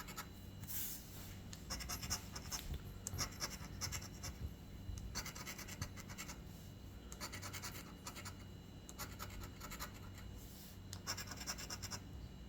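Scratch-off lottery ticket being scratched, its coating scraped away in short bouts of quick strokes, about seven bouts with brief pauses between.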